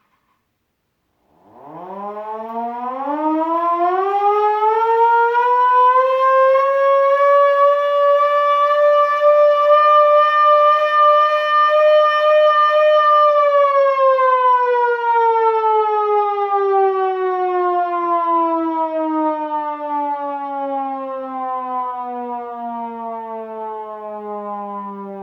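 Vixen VXS-2000MTP tornado siren winding up from silence about a second in to a single steady wailing tone. It holds for several seconds, then slowly winds down in pitch and level through the second half.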